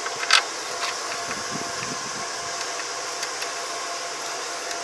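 Steady mechanical hum of a machine running, with a faint high hiss. A short sharp click about a third of a second in, as the bent metal crop divider of the combine harvester is handled.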